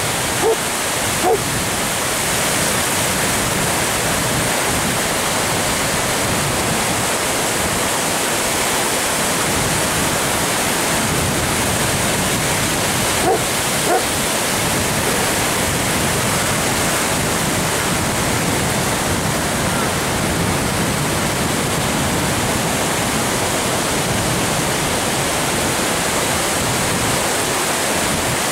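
Steady wash of surf breaking and running up a sandy beach. A few short distant calls are heard at the start and again about halfway.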